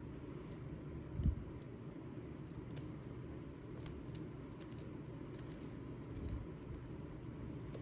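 Small, irregular metallic clicks and scrapes of a hook pick probing the pin stack of a six-pin Schlage mortise cylinder under tension, feeling for binding pins. There is a dull knock about a second in.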